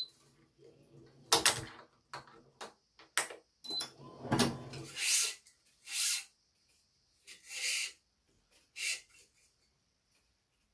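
Badminton racket stringing work: short swishes of string being drawn through the frame among sharp clicks and knocks of clamps and tools, in irregular bursts with gaps between.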